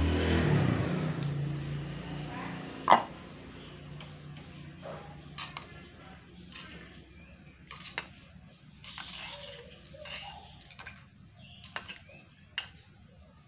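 Light taps and clinks of a thin stick stirring hide glue in the ceramic inner pot of a small electric cooker, with one sharp, loud clink about three seconds in.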